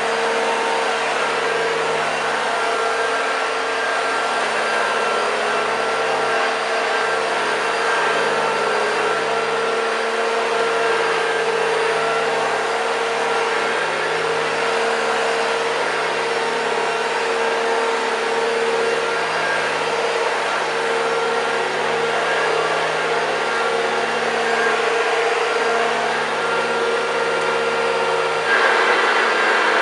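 1981 Hoover Junior U2128 upright vacuum cleaner running steadily on carpet: its motor and beater bar give a steady hum with a constant tone. Near the end the sound turns brighter and a little louder.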